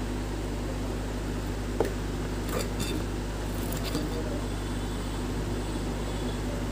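A steady background hum, with a few light clicks and snips from a red-handled wire stripper working the end of a thin orange wire, grouped in the middle seconds.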